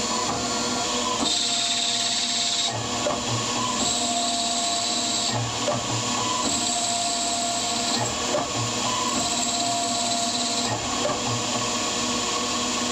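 Metal lathe spindle running at a bit over 1000 RPM while the ball-screw carriage makes automatic screw-cutting passes on a taper. A brighter hiss and whine of about a second and a half comes four times, each pass of the tool cutting the 1 mm pitch thread.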